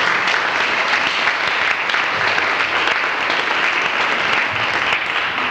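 Audience applauding, a steady dense clapping that begins to die away at the very end.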